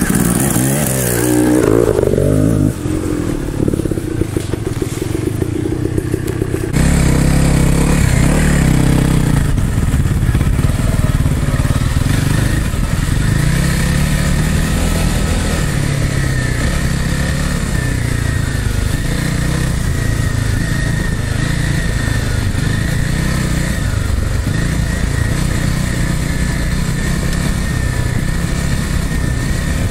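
Dirt bike engine running hard on a trail, its revs rising and falling with the throttle. It eases off for a few seconds early on, then pulls strongly again.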